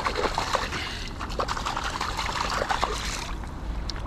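River water splashing and trickling, a busy wet sound with small clicks, that stops about three seconds in.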